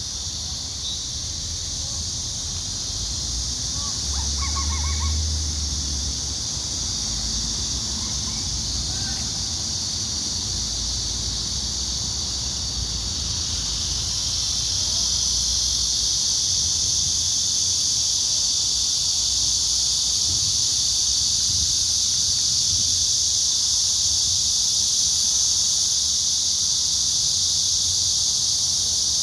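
Steady chorus of insects: a dense, high-pitched shrill trill that grows louder about halfway through. A few faint short calls sound in the first ten seconds.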